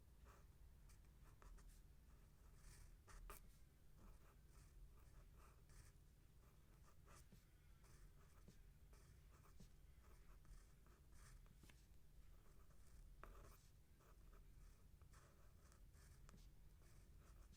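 Faint handwriting: a writing implement scratching on a surface in short, irregular strokes as Thai words are written out by hand.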